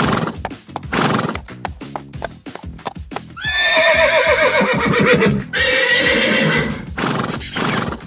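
Horse sound effects over background music: hooves clip-clopping, then a long horse whinny falling in pitch about three and a half seconds in, followed by a second shorter call.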